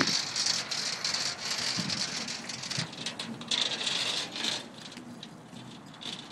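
Scraping and rattling of dog-leash handles dragging along a textured rubber walkway, an uneven hiss that comes and goes as the dogs walk, fading near the end.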